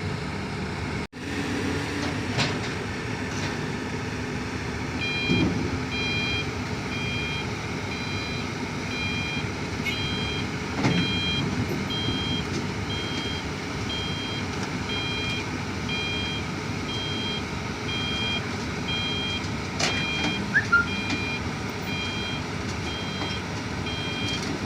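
Excavator's diesel engine running, with its travel alarm beeping steadily at about one and a half beeps a second from a few seconds in. A few metal clanks come at intervals.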